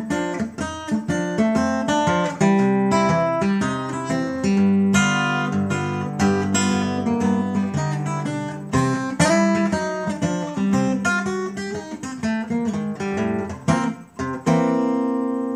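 Solo steel-string acoustic guitar fingerpicked in a ragtime-blues style, with a moving thumb bass under the melody notes. Near the end it settles on a final chord that rings out and slowly fades.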